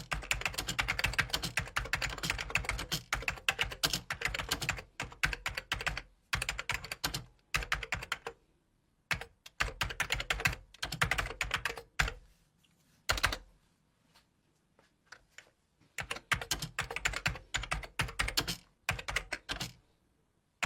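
Typing on a computer keyboard: quick runs of key clicks in bursts of a few seconds, broken by short pauses and a few single keystrokes.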